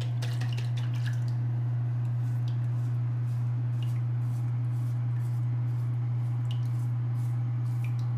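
A loud, steady low hum with faint scattered ticks and drips over it.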